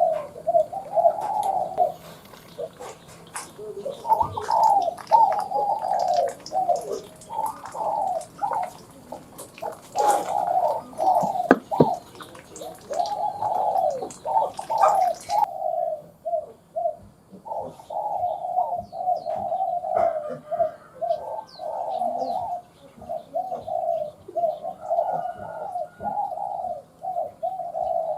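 Spotted dove cooing over and over in repeated short phrases, the narrow-pitched call of the small 'còi' type that trappers use as a lure. A few sharp clicks fall about ten to twelve seconds in.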